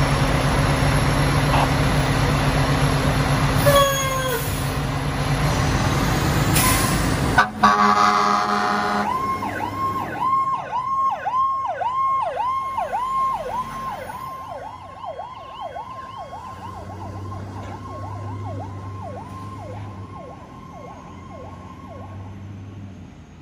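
A fire engine's diesel engine rumbles loudly as the truck pulls out, with a short siren chirp about four seconds in and a loud horn blast around seven seconds. The siren then switches to a fast repeating yelp that fades as the truck drives away.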